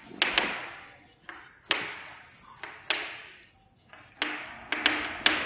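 Chalk writing on a blackboard: an uneven string of sharp taps, each trailing off, as the chalk strikes and strokes across the board.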